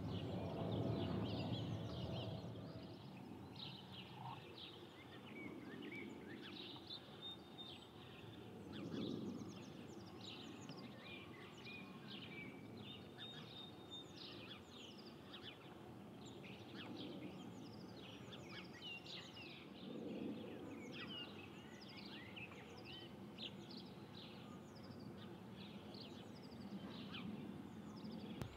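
Small songbirds chirping and twittering many times a second over a faint low rumble. The rumble is strongest in the first couple of seconds and swells briefly twice more.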